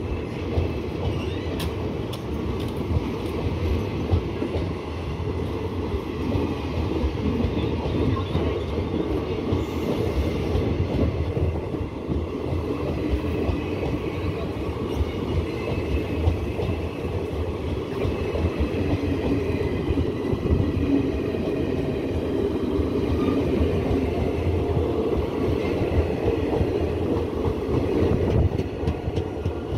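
Indian Railways express passenger coaches running past at speed: a steady, loud rumble and clatter of steel wheels on the rails, with a faint high whine over it at times.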